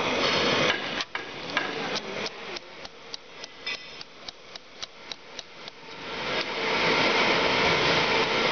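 Small hammer tapping a pin into a steel hinge: light metallic taps about three a second for some five seconds. A steady rushing noise comes back up near the end and is louder than the taps.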